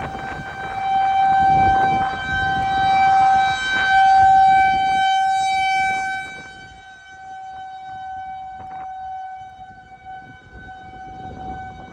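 Outdoor tornado warning siren sounding one steady, unbroken tone that swells and fades in loudness, signalling a tornado warning. Wind rumbles on the microphone through the first half.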